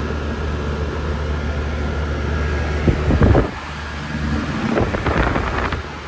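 A 1980 Lennox HS9 central air conditioner's outdoor condensing unit running with a steady low hum. Louder bursts of rumbling noise come about halfway through and again near the end.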